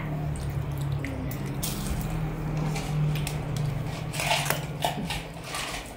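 Eating and handling sounds: a crisp fried spring roll chewed close to the microphone, and a few clicks and taps as spring rolls are picked from a plate, about four seconds in. Under it runs a steady low hum.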